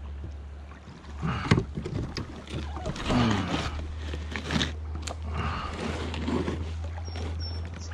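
Wind rumbling on the microphone, with irregular splashing and handling noises as a big carp is fought toward shore.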